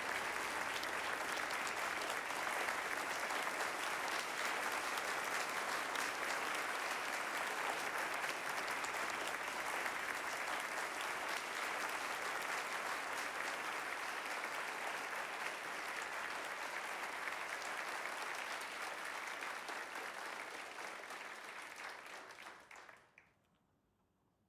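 Audience applauding, a dense steady clapping that eases off over the last few seconds and stops near the end.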